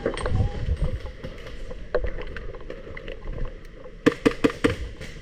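A short burst of airsoft gunfire near the end: about half a dozen sharp cracks within half a second, after a low rumble of movement and handling in the first second and a single crack around the middle.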